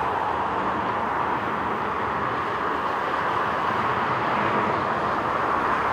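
Steady jet noise from an Airbus A330-243's Rolls-Royce Trent 700 engines on final approach to land, swelling slightly about four seconds in.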